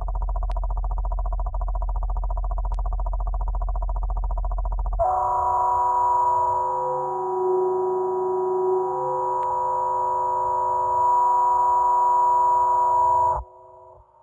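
Circuit-bent office telephone putting out electronic tones as wires on its circuit board are handled. First comes a buzzing, fast-pulsing low drone. About five seconds in it switches abruptly to a held cluster of steady tones that waver slightly in pitch, then cuts off suddenly near the end.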